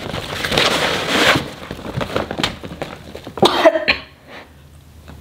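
Reusable shopping bag and its plastic stiffener sheet rustling and crinkling as the sheet is pushed inside and the bag is handled, with a few clicks, then one short loud burst about three and a half seconds in.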